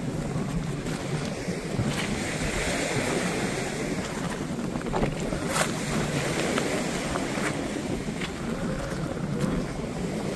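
Wind buffeting the microphone over the wash of small waves on a shore, with a few scattered crunches and clicks of footsteps on beach pebbles.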